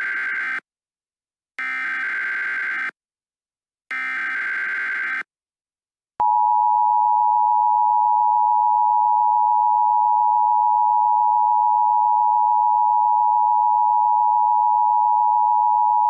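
Emergency Alert System SAME header: the end of one short burst of digital data tones and two more bursts of about a second and a half each. After a pause, the two-tone EAS attention signal (853 and 960 Hz) comes in about six seconds in as a steady, loud tone lasting about ten seconds.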